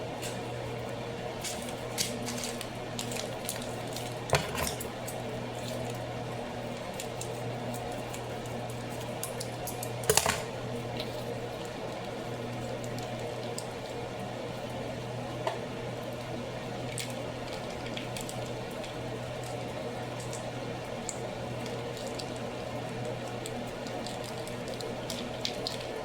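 Pot of macaroni bubbling on the stove over a steady low hum, with a few sharp clicks and knocks, the loudest about ten seconds in.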